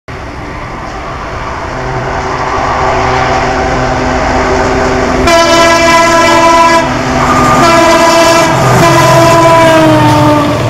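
WDP 4 diesel-electric locomotive (EMD two-stroke diesel) approaching at speed with its engine running and growing louder. It then sounds its horn twice: a short blast about halfway through, then a longer one that drops in pitch as the locomotive passes.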